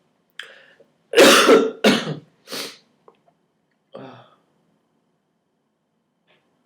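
A person sneezing, set off by plucking nose hairs: a loud sneeze about a second in, then two shorter breathy bursts and a brief throaty sound near four seconds.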